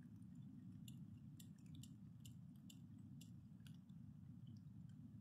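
Faint raindrops tapping on a tarp shelter overhead, scattered sharp taps about two a second, over a low steady rumble.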